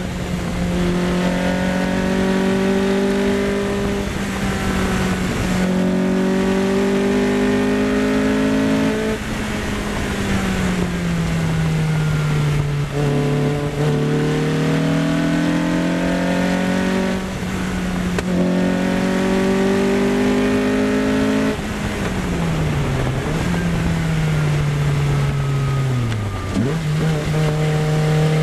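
Race car engine heard onboard at speed during a track lap, holding a steady high pitch with short breaks every few seconds. Twice the revs fall away as the car slows, the second time sinking low before picking up again near the end.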